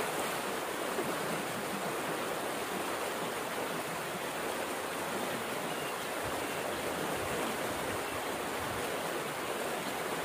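Steady rush of water pouring out of a concrete culvert pipe and churning into a creek.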